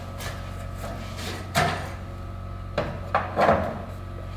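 Jeep XJ hood being lifted and propped open: a few clunks and rattles of the sheet-metal hood and its hinges, one about one and a half seconds in and a quick cluster around three to three and a half seconds, over a steady low hum.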